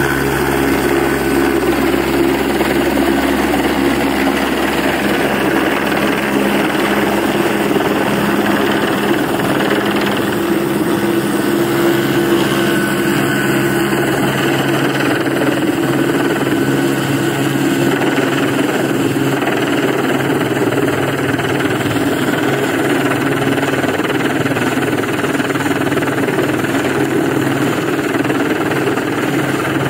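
Airbus AS350 B3 Écureuil single-turbine helicopter hovering close overhead with a slung load on a long line, its rotor and turbine running loud and steady throughout.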